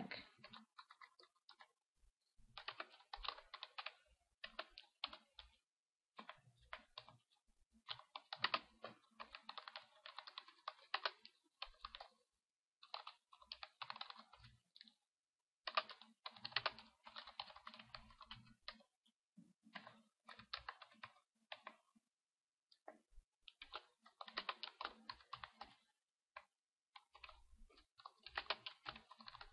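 Faint typing on a computer keyboard: runs of quick keystrokes lasting a few seconds each, broken by short pauses.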